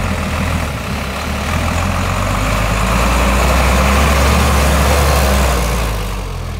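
Heavy off-road truck engine running under load. It grows louder over the first few seconds and eases off near the end.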